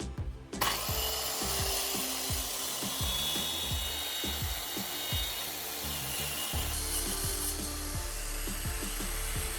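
Circular saw cutting through wood: the saw starts up about half a second in and runs steadily through the cut. Faint background music plays underneath.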